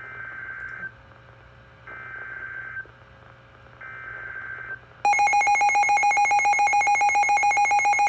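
A Midland NOAA weather radio receiving a new alert: three short bursts of screechy EAS/SAME data tones about a second apart, the coded header of a new warning. About five seconds in, the radio's own alert alarm starts, a loud, rapidly pulsing beep.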